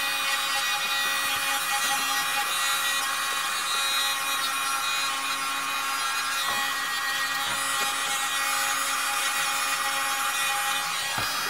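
Electric manicure drill (nail e-file) running steadily at about 15,000 rpm with a diamond bit, a whine over a grinding hiss as it works the natural nail along the cuticle. It stops shortly before the end.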